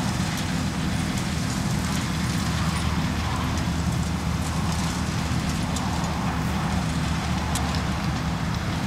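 Diesel engine of a tractor or telehandler running at a steady speed, an even low drone with a few faint clicks above it.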